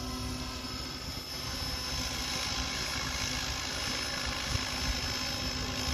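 Radio-controlled helicopter flying a slow pirouette overhead: its rotor and motor give a steady, even drone.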